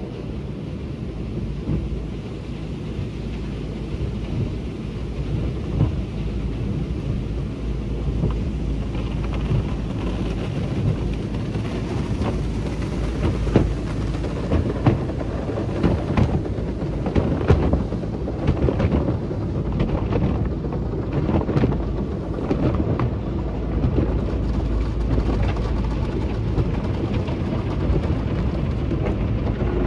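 Peco tunnel car wash equipment working over a car: water spray drumming on the body with a steady rushing rumble. Irregular knocks and taps cluster in the middle stretch.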